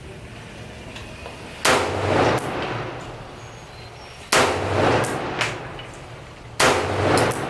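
Three rifle shots about two and a half seconds apart, each sharp crack trailing off in echo, with a few fainter sharp cracks in between.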